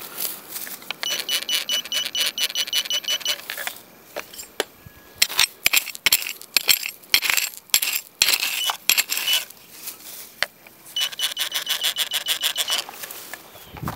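Metal detector beeping at a buried target in two spells of about two seconds each, a high pulsed tone at about six beeps a second, one near the start and one near the end. In between, loud irregular clicks and scrapes of stones and gravelly soil as the spot is dug and searched.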